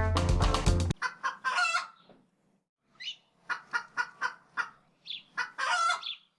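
Music cuts off about a second in, followed by a series of short clucking animal calls, two of them longer.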